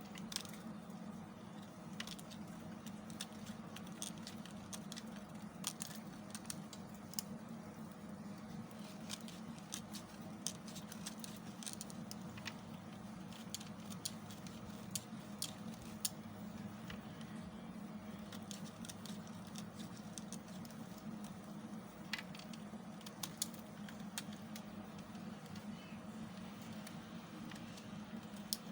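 A blade carving into a bar of soap: dense, irregular crisp crackles and scraping clicks as it shaves and cuts through the soap, over a steady low hum.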